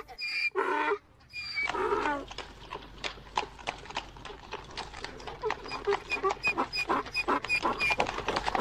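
Cartoon sound effect of a donkey braying, then its hooves clip-clopping at a quick, even pace as it makes off.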